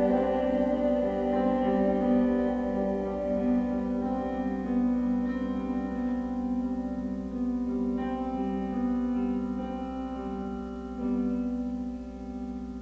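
Chamber choir and piano holding soft, sustained chords, with a few new piano notes entering, the music gradually dying away.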